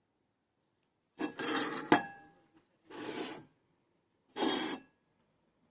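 Ripe Pinkerton avocado's skin being peeled off the flesh by hand: three rasping, tearing scrapes. A short clink of a ceramic plate comes near the end of the first.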